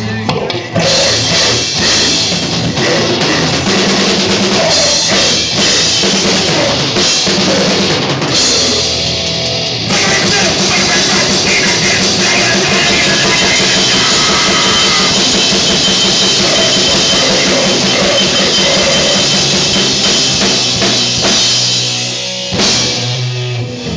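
Live punk rock band playing loud, with the drum kit prominent; the music grows denser about ten seconds in.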